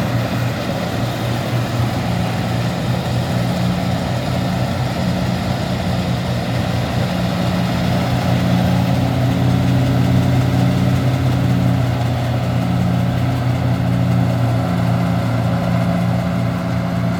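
Combine harvester working through standing wheat: its engine and threshing machinery give a steady low drone, slightly louder around the middle.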